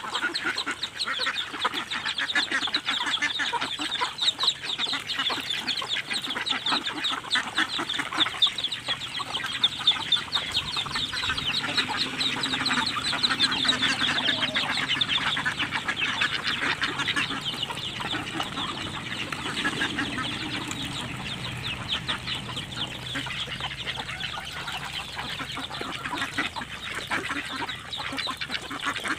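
A flock of Muscovy ducks and hens feeding together: a dense, continuous rapid clicking of bills pecking and dabbling in wet feed, with hens clucking.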